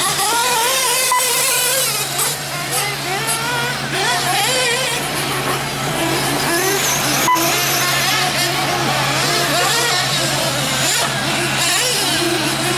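Several radio-controlled truggies racing on a dirt track, their motors whining and rising and falling in pitch as they accelerate and slow through the turns, over a steady low hum. A sharp click sounds about seven seconds in.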